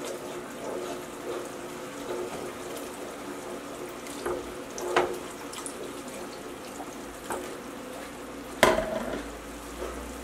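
Milk being poured slowly into a pot of hot candy syrup, a steady running, pouring sound. There are a few light clicks, and one sharp knock near the end.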